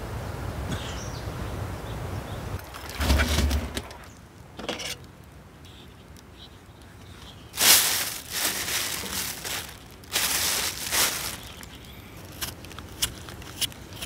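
A thin plastic bag crinkling in two long loud bursts, then a few short sharp clicks of a folding knife paring the skin off a potato near the end. Before that, wind rumbles on the microphone, with a brief louder buffet about three seconds in.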